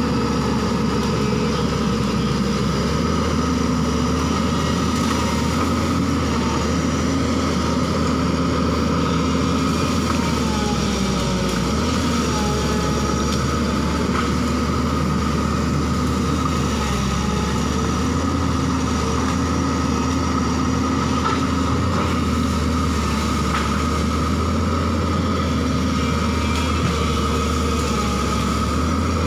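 JCB tracked excavator's diesel engine running steadily as the machine works and swings, with a steady high whine over the engine note.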